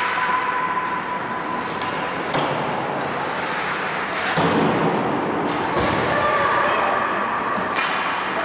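Ice hockey play in a rink: a steady scraping hiss of skates on the ice, broken by several sharp knocks of sticks, puck and boards, the loudest about four and a half seconds in, with players' voices calling in the background.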